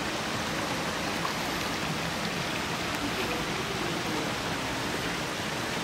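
Steady rushing of flowing water, as from a creek or small waterfall along the track, an even hiss without breaks.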